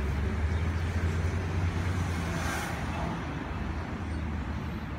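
Road traffic: a steady low engine rumble, with a brief hiss about halfway through.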